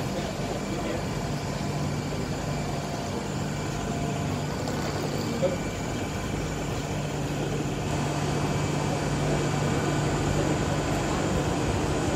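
TGV Duplex high-speed train rolling slowly into the station, its running noise growing gradually louder in the second half over a steady low hum.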